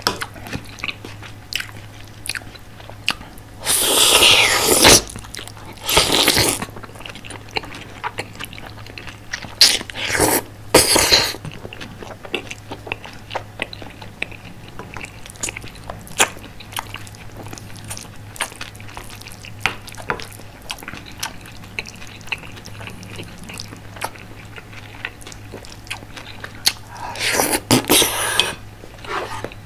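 Close-miked eating of curry rice: soft wet chewing and mouth clicks, broken by a few louder, rougher sounds about a second long. A steady low hum sits underneath.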